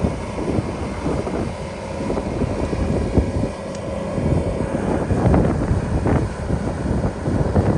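Wind buffeting the microphone in gusts, over the steady running of a vehicle engine.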